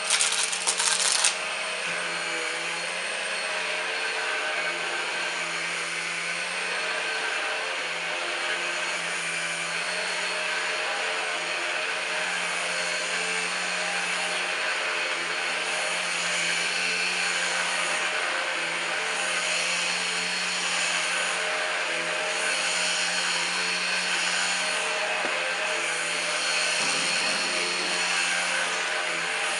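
Numatic Henry Quick cordless stick vacuum running steadily with a constant motor hum and airy hiss, with a brief louder rasping burst in the first second or so.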